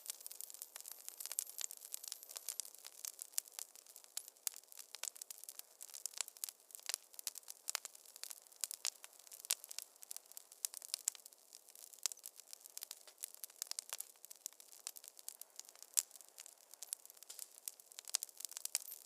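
Wood fire in a fireplace crackling: a dense, irregular run of small sharp pops and snaps over a soft hiss.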